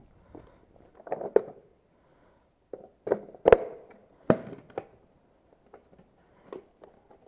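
Irregular footsteps and knocks on a hard surface, in uneven clusters, with the loudest thud about three and a half seconds in.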